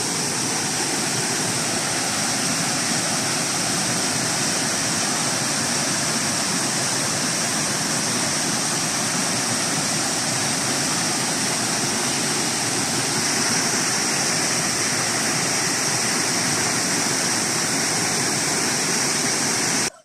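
Waterfall's steady, loud rushing of falling water, which cuts off suddenly near the end.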